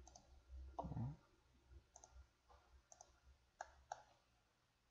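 Computer mouse clicks: a handful of sharp, separate clicks spread through the quiet, two of them close together near the end. About a second in there is a brief low hum of a voice.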